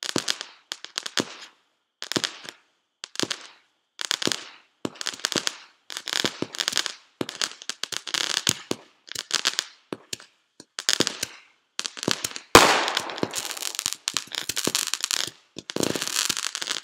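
Fireworks going off: short bursts of rapid pops, roughly one a second with gaps between them. About twelve and a half seconds in comes a sharp bang, the loudest moment, followed by dense continuous crackling.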